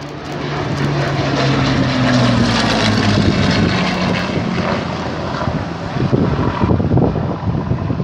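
Hawker Hurricane's Rolls-Royce Merlin V12 engine and propeller in a low flyby: the drone swells over the first second, then its pitch falls between about two and four seconds in as the plane passes, and it carries on slightly quieter as it moves away.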